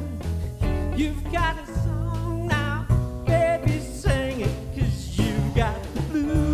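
Blues band playing an instrumental passage: electric guitar lead with wavering, bent notes over a plucked upright double bass and drums.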